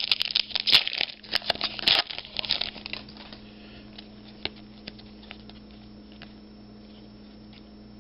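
Wrapper of a sports card pack crinkling and tearing for the first few seconds, then only a few faint clicks.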